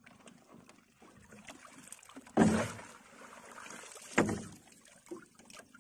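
Two splashes, about two seconds apart, as collapsible net crab traps are tossed from a small boat into the sea. Faint water sounds run in between.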